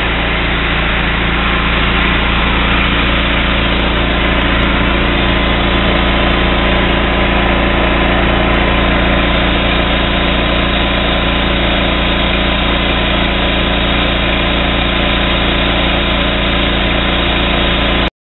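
Pressure washer running under load: a 13-horsepower engine driving a belt-driven Cat plunger pump at about 3500 RPM, with the high-pressure jet from a 25-degree nozzle hissing onto a bathroom scale. Loud and steady, cutting off suddenly near the end.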